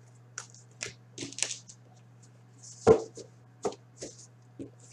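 Trading cards being handled and tapped down on a tabletop: a string of short taps and slaps, the loudest about three seconds in, over a steady low electrical hum.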